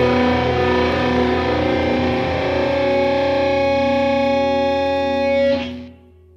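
Rock music ending on a distorted electric guitar chord that is held and rings, then is cut off sharply about five and a half seconds in, leaving only a faint low hum.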